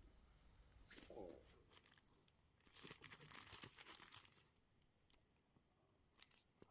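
Faint rustling, crinkling and tearing of packaging being handled, densest from about three to four and a half seconds in, with a few light clicks near the end.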